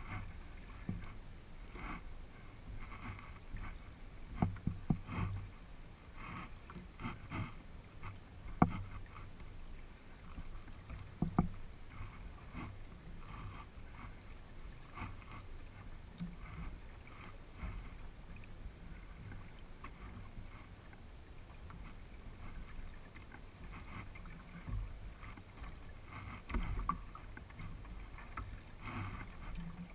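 Water lapping and gurgling against the hull of a Hobie sail kayak moving slowly through calm water. A few short sharp knocks stand out, the loudest about a third of the way in.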